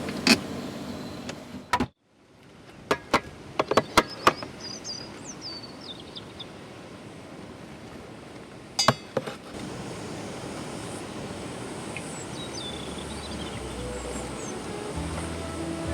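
Steady outdoor background noise with sharp clicks and knocks, a quick run of them about three to four seconds in and two more near nine seconds, and a few faint high chirping calls.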